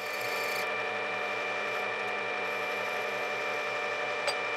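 Small metal lathe running steadily, a turning tool cutting a spinning quarter-inch brass rod. A single light click about four seconds in.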